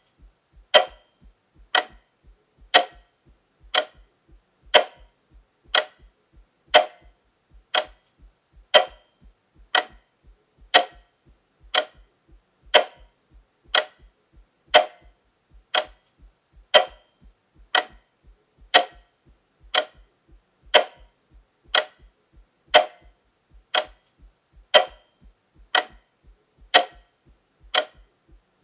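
Quartz clock movement ticking loudly and steadily, about one sharp tick a second, with alternate ticks slightly louder, giving a tick-tock.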